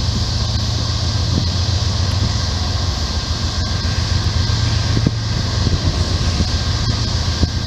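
Norfolk Southern diesel-electric freight locomotives approaching slowly, their engines giving a steady low rumble over a constant hiss, with a few faint clicks.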